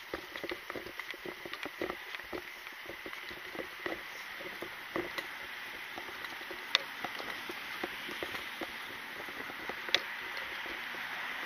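Walking sounds of a person carrying gear: a quick, irregular run of light clicks and rattles, thinning out later, with two sharper clicks, one past the middle and one near the end, over a steady outdoor hiss that grows a little louder toward the end.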